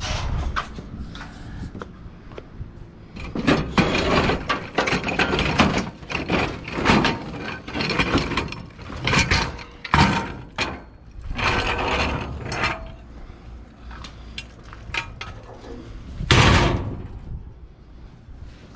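Rummaging through discarded items in a dumpster: junk and boxes being shifted and handled, with irregular clattering, knocking and scraping in bursts, and one loud knock near the end.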